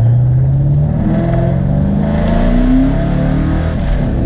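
Ford Mustang GT's V8 engine accelerating, heard from inside the cabin. Its pitch climbs steadily and then drops about three seconds in, as at an upshift.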